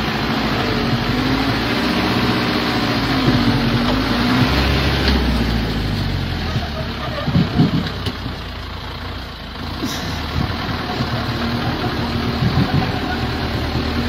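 Heavy three-axle logging truck's engine labouring through deep mud, its pitch rising and falling as it revs under the load of logs, with a few knocks about seven seconds in and again near the end.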